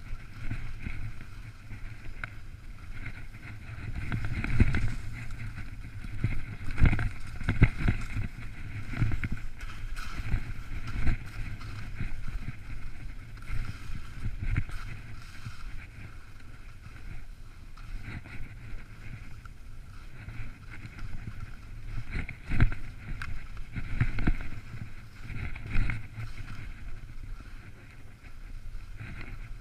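Wind buffeting an action camera's microphone in uneven gusts, a low rumble that swells and drops every second or two.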